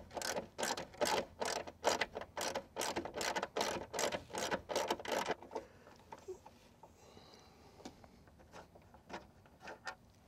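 Small ratchet wrench with a T25 Torx bit clicking while backing out a door-mirror mounting screw, about four clicks a second for five seconds, then only a few faint clicks.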